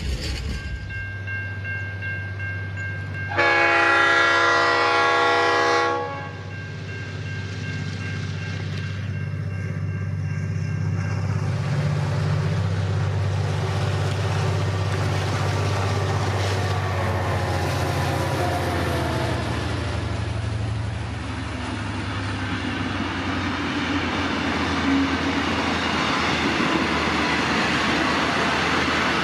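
Diesel-electric locomotive working a train, its engine droning steadily throughout, with one long horn blast of about two and a half seconds a few seconds in. Later a whine falls in pitch as the train moves.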